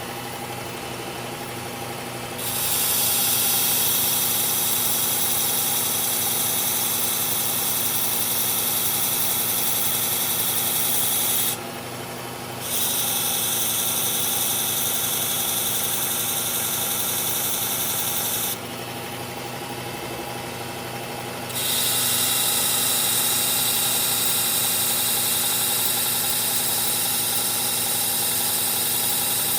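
Motorized belt sharpener running steadily while a knife blade is ground on its new abrasive belt, a loud hiss over the motor hum. The grinding comes in three long passes, broken off briefly about twelve seconds in and again around nineteen to twenty-one seconds, when only the motor is heard.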